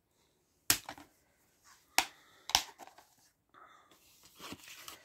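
Plastic Blu-ray disc case being handled: three sharp clicks about a second apart, then a softer rustle near the end.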